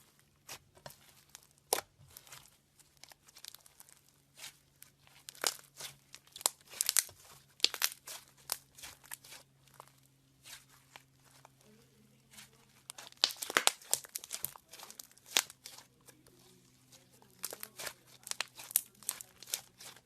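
Slime being squeezed and stretched by hand, giving irregular crackling clicks and pops in clusters, busiest about a third of the way in and again past the middle.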